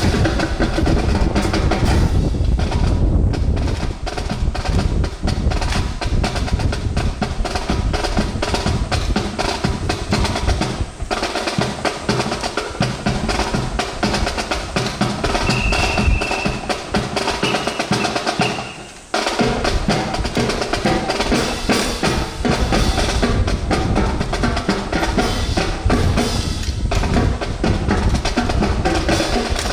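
Marching percussion for a drill routine: rapid snare drum rolls and strokes over bass drum beats. The drumming dips briefly about nineteen seconds in, then picks up again.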